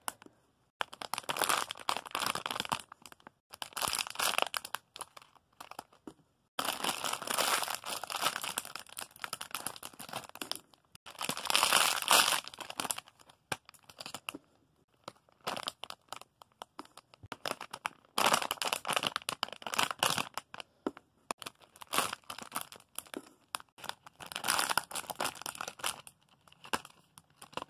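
Plastic squishy packaging crinkling and rustling in irregular bursts as the squishies are handled and picked up one after another.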